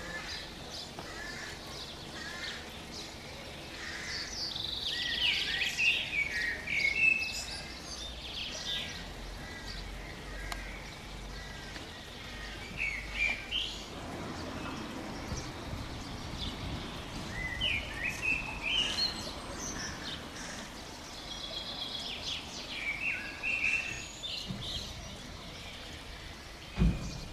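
Songbirds singing in short bouts of quick chirping phrases over a steady low background hum, with a single soft thump near the end.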